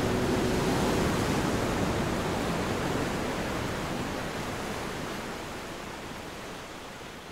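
Ocean surf rushing as a steady, even wash of noise, slowly fading out.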